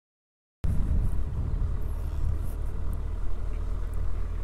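After half a second of dead silence, a Suzuki Hayabusa's inline-four engine cuts in, running steadily at low revs.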